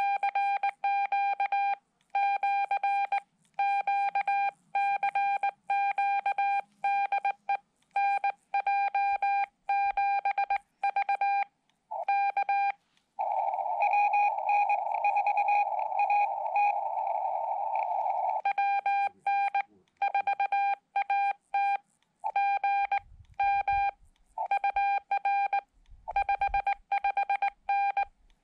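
Morse code (CW) from the Xiegu X5105 transceiver's speaker: a single mid-pitched tone keyed on and off in dots and dashes. For about five seconds in the middle, the tone sits in a band of receiver hiss.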